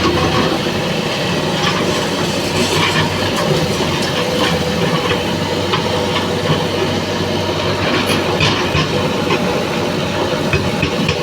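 Heavy diesel construction machinery running steadily, with a low engine hum and continual metallic rattling and clanking.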